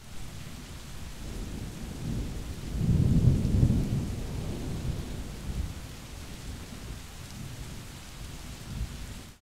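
Thunderstorm: steady rain with a low rumble of thunder that swells about three seconds in and then dies back. The sound cuts in and cuts off abruptly.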